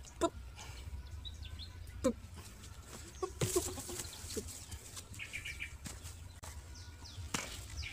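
Scattered short bird-like chirps and cheeps, including a quick run of high chirps midway, over light rustling and soft clicks as cloth and puppies are handled.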